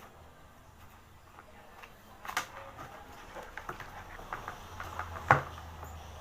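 Scattered light clicks and taps, with two sharper knocks, over a faint low hum.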